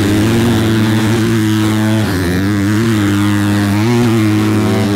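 Motocross bike engines running hard, their pitch dropping and climbing again about two seconds in and near four seconds as the throttle is worked.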